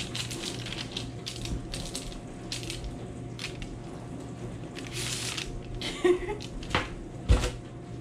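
A metal baking sheet of baked dog biscuits on parchment paper being handled: the parchment rustles and scrapes, then the sheet knocks a few times, the loudest knock about seven seconds in. A steady low hum runs underneath.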